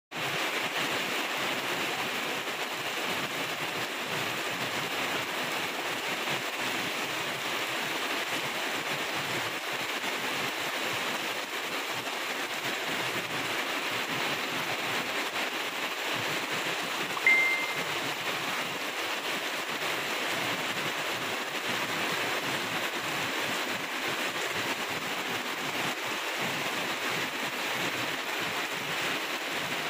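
Heavy rain falling steadily, a dense even hiss. A little past halfway, one short high-pitched tone stands out briefly above the rain.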